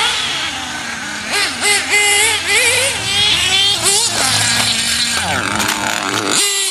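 Go-Tech .21 nitro engine of a 1/8-scale Losi RC buggy running at high revs, its whine rising and falling with the throttle as it drives. Near the end the pitch falls steadily as it comes off the throttle.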